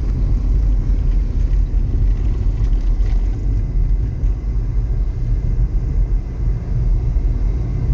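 Steady low rumble of a car driving along a highway, heard from inside the cabin: engine and tyre noise with no sudden events.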